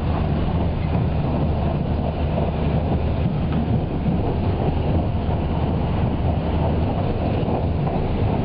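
Haruka limited express train running at speed, heard from inside the passenger cabin: a steady low rumble of the train on the rails.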